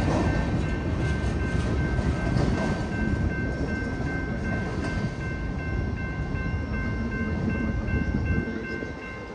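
Freight train rolling past: a steady heavy rumble of railcars on the track, with a few thin, steady high-pitched tones above it. The rumble fades somewhat near the end.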